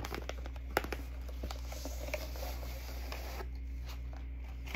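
A mailer envelope being opened and a bodysuit pulled out of it: rustling and crinkling of packaging and fabric, with a few sharp clicks and snaps.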